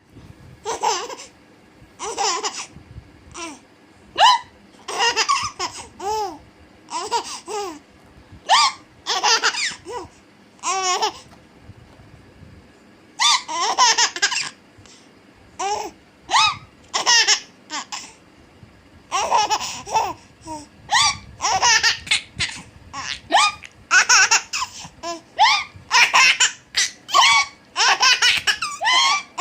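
A baby laughing in short repeated bursts in reaction to a woman's hiccups, the hiccups and giggles alternating over and over.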